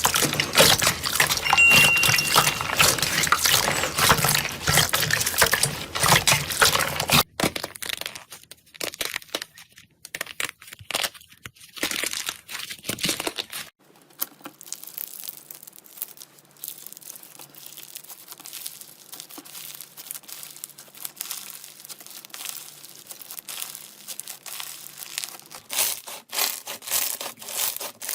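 Slime being squished and worked, giving dense crackling and popping clicks. The crackling is loud for the first seven seconds, then goes quieter and sparser, with a busier burst near the end.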